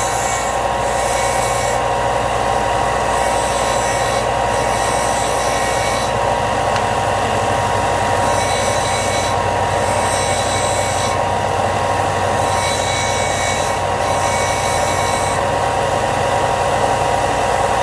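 Bench grinder motor running steadily while short cut pieces are pressed against the spinning wheel to take off burrs. The high grinding hiss comes in repeated passes of a second or so, with short breaks between them.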